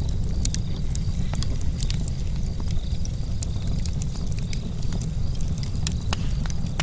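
Camp charcoal fire crackling, with irregular sharp pops and ticks over a steady low rumble.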